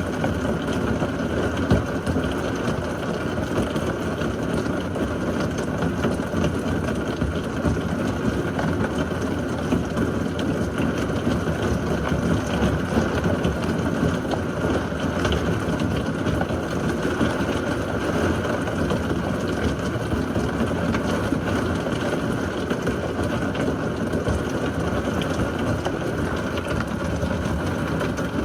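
Heavy rain falling steadily in a severe thunderstorm, an even rushing noise without pause.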